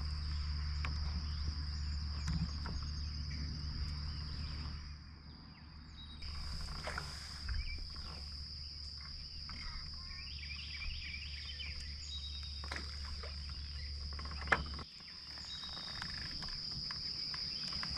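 A steady, shrill chorus of insects, likely crickets, runs throughout over a low rumble that stops near the end. Scattered small knocks and clicks come from the kayak, with one sharper knock a little before the rumble cuts out.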